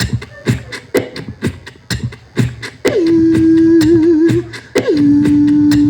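Beatboxing: a steady mouth-percussion beat of about two hits a second. About three seconds in it is joined by long held vocal notes that swoop down into pitch, the first with a brief wobble, the second a little lower.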